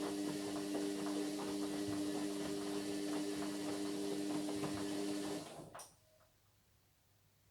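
Indesit MyTime washing machine's motor turning the drum, a steady hum with a fast run of light ticks, which winds down and stops about five and a half seconds in.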